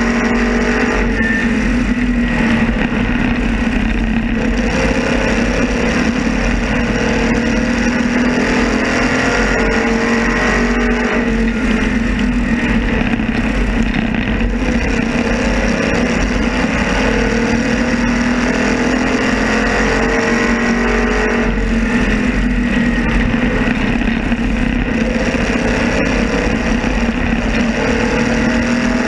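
Onboard sound of a racing modified's engine at race speed, its note rising and falling over and over through the laps, with wind rush over the car.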